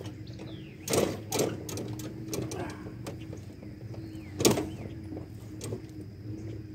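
Tractor engine idling steadily. Sharp knocks come about a second in, two close together, and a louder one about four and a half seconds in.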